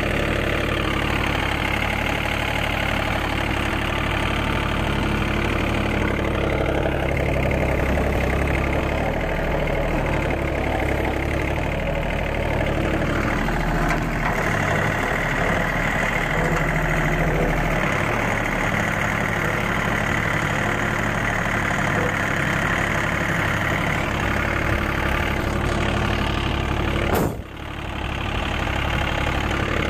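John Deere mini tractor's diesel engine running steadily under load while it pulls a cultivator through a banana field, with a brief drop in sound about three seconds before the end.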